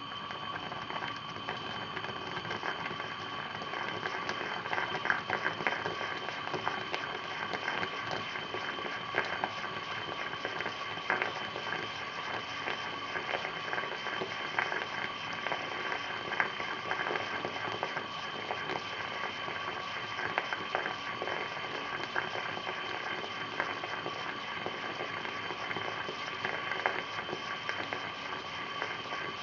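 Aluminium stovetop moka pot on a gas flame, gurgling and sputtering as coffee and steam spurt from the centre spout into the upper chamber, which is typical of the end of the brew. Many small irregular pops run over a steady high whine and hiss.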